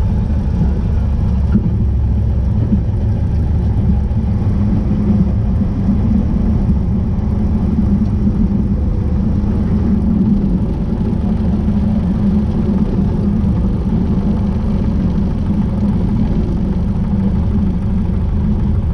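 Cessna 150's four-cylinder Continental O-200 engine and propeller running at low power as the plane rolls out after landing, heard from inside the cockpit as a steady low drone.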